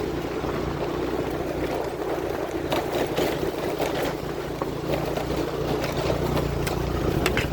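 A motor vehicle's engine running steadily on the move over a rough off-road track, with scattered knocks and rattles.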